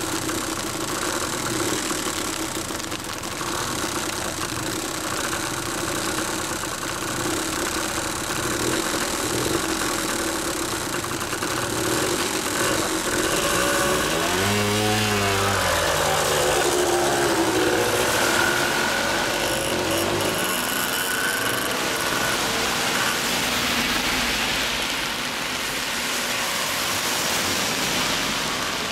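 Two-stroke trail bike engines, a Kawasaki KDX125 with an RSV expansion chamber among them, idling steadily, then revved with the pitch swinging up and down as the bikes pull away about halfway through. Later the engine sound thins into a hiss of rain and passing traffic.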